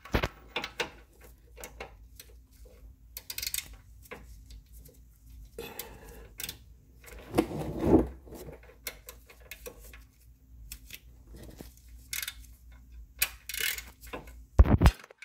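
Socket ratchet clicking in short irregular runs while loosening an engine oil drain plug, with a few louder metallic knocks about eight seconds in and near the end. A low steady hum runs underneath.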